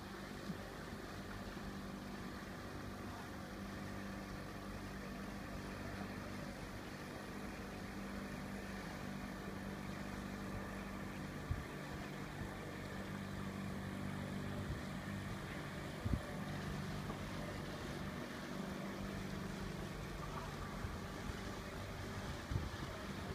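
A boat's engine running on the canal: a low, steady hum that grows a little louder, with two short knocks near the middle.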